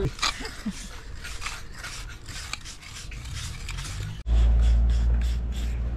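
A hand tool scraping lime mortar joints on a rubble-stone wall in quick repeated strokes as the joints are finished. About four seconds in, this gives way abruptly to a louder, steady low rumble.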